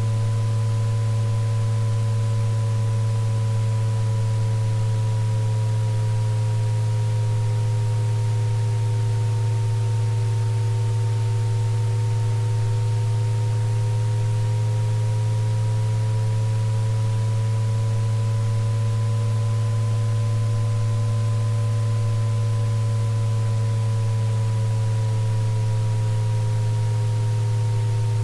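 Synthesized tinnitus-relief sound-therapy drone: a loud, steady low tone with several fainter pure tones above it that slowly drift up and down in pitch, over a soft even hiss.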